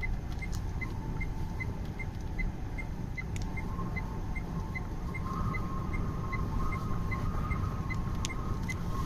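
A vehicle driving, with a steady low rumble of engine and road noise. Over it runs a short, regular tick about two and a half times a second, and a faint steady whine joins about halfway through.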